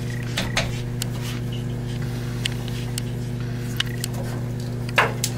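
Steady low electrical hum from workshop equipment, with a few scattered light clicks and knocks as tools and the tailstock are handled at the lathe.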